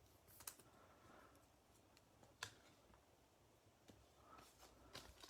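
Near silence with a few faint, short clicks of trading cards being handled.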